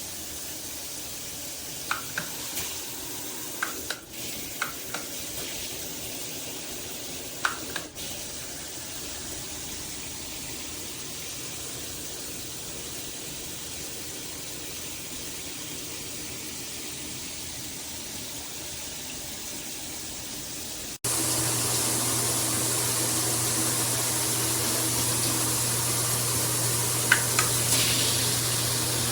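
Water running from a handheld shower head, a steady hiss with a few faint ticks early on; the spray is weak and dribbling rather than a jet. About two-thirds of the way through it cuts abruptly to a louder, steadier water spray with a low hum.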